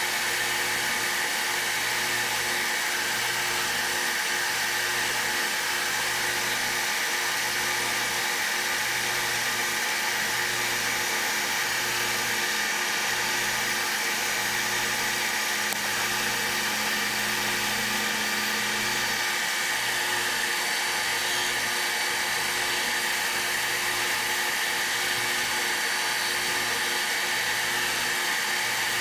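Metal lathe turning down a steel shaft with a carbide insert, cutting steadily with a high-pitched machining whine.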